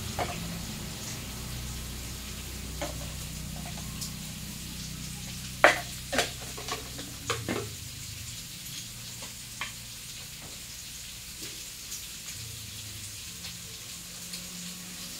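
Potatoes frying in oil in a wok with a steady sizzle. Several sharp knocks come a little past the middle, the loudest about five and a half seconds in.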